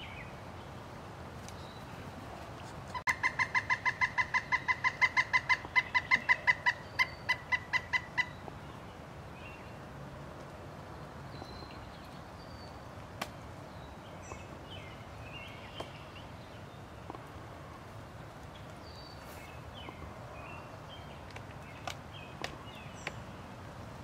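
Pileated woodpecker calling: a fast run of about thirty loud, evenly pitched notes lasting some five seconds, starting about three seconds in and spacing out toward the end.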